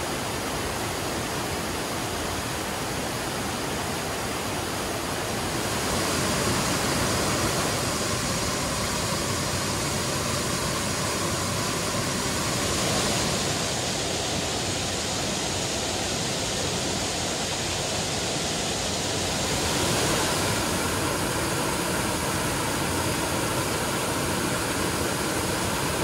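Waterfall about 12 feet high: a steady rush of falling water that grows louder about six seconds in.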